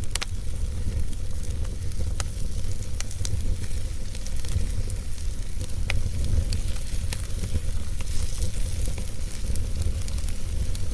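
Wood fire in a fireplace crackling: scattered sharp pops and snaps, a few louder ones, over a steady low rumble of the burning fire.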